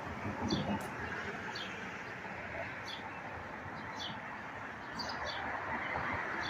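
Small bird chirping: short, falling chirps repeating about once a second over a steady background hiss.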